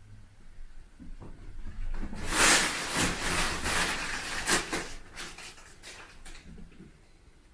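A cat scrambling on and into a fabric play tunnel, the tunnel's material rustling and crinkling in a run of scratchy bursts. It starts about two seconds in and lasts about four seconds.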